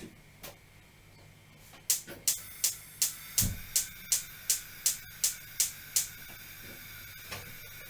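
Oven controls being set: about a dozen sharp, evenly spaced clicks, roughly three a second, with one duller knock partway through. A steady hum carries on after the clicking stops.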